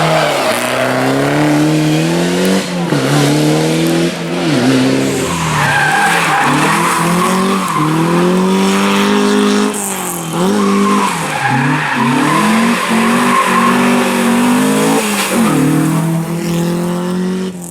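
Rally car engine revving hard, its pitch climbing and dropping sharply again and again as it shifts gears and lifts off between corners, with tyre squeal and skidding.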